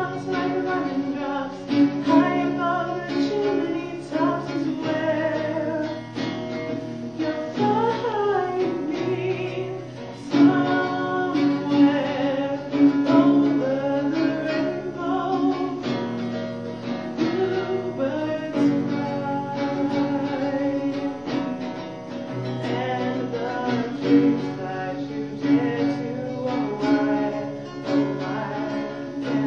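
A song sung to acoustic guitar strumming.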